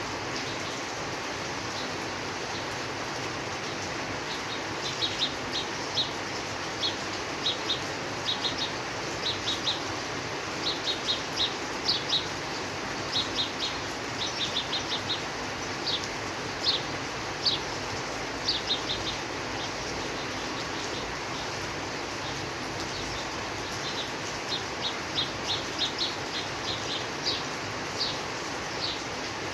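Steady rain hiss with a small bird chirping over it in quick short high notes, in runs that stop for a few seconds and then start again near the end.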